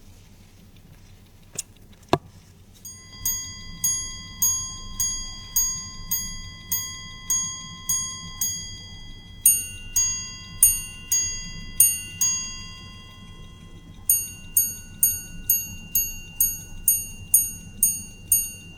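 Roger Dubuis Excalibur grand-complication watch's minute repeater striking the time on its gongs. After two sharp clicks, it strikes a run of single notes on the low gong for the hours. It then strikes alternating pairs on both gongs for the quarters, and from about fourteen seconds in a run of quicker strikes on the higher gong for the minutes.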